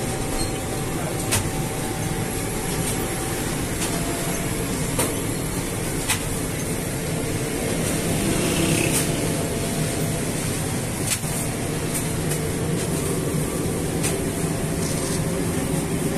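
Semi-automatic flatbread production line running steadily: the dough sheeter's rollers and conveyor belts give a constant mechanical hum, with scattered sharp clicks and knocks from the machinery.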